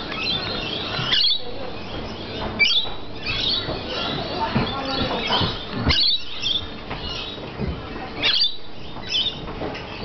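Rainbow lorikeets chattering, with several short, shrill screeches one to three seconds apart.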